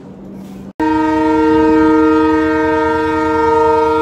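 Indian Railways WDP4D diesel locomotive's horn sounding one long, steady multi-tone blast, starting abruptly about a second in. Before it there is low platform noise with a steady hum.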